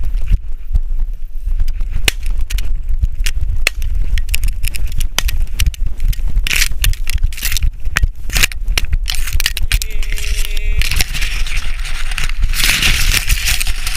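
Dry scrub and grass crunching and crackling right against a body-worn action camera as it pushes through brush, over a constant low rumble of wind and handling. There is a brief steady tone about ten seconds in.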